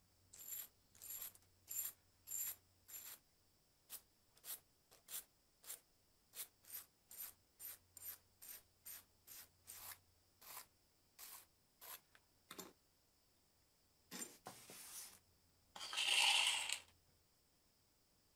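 Small wire brush scrubbing the rusty brass body of an antique gas lighter in short, separate strokes, about two a second. Near the end come a rougher stretch of scraping and then one louder, longer rasp of about a second.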